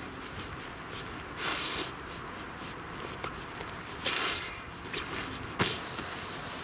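Pup tent's fabric rustling and swishing as it is rolled up tightly and pressed down on cardboard, with a few louder swishes and one sharp tap near the end.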